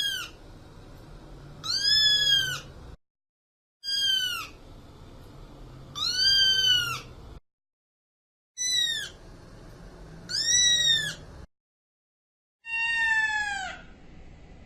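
Kitten meowing: seven high meows in pairs, each rising then falling in pitch. The last one, near the end, is longer and lower with a falling pitch.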